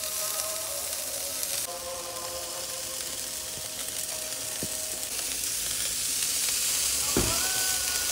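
Burger patties sizzling on a hot grill grate over charcoal, a steady crackling hiss, with a single thump near the end.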